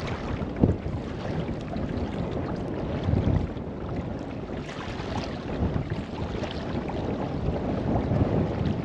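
Kayak paddle strokes splashing through the water every couple of seconds, with water washing along the hull and wind rumbling on the microphone.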